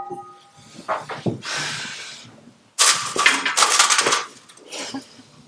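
Venetian blind slats rattling and crinkling as they are gripped and pressed by hand, in a loud run from about three seconds in for about a second and a half, with a smaller rattle near the end.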